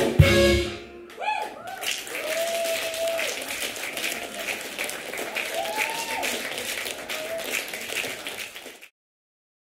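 A jazz quartet's final chord on sax, organ and guitar, closed by a drum and cymbal hit. About a second in, audience applause with a few whooping cheers starts, then cuts off suddenly near the end.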